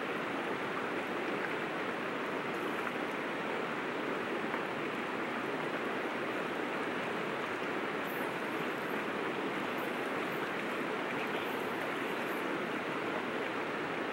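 Steady rushing of a river flowing over a rocky bed.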